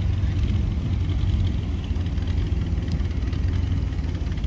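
Mid-1960s Ford Thunderbird's V8 engine running with a steady low rumble at low speed as the car rolls slowly past.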